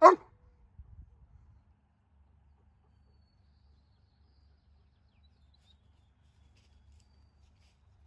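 A Doberman barks once, loudly, right at the start, then only a faint low rumble remains.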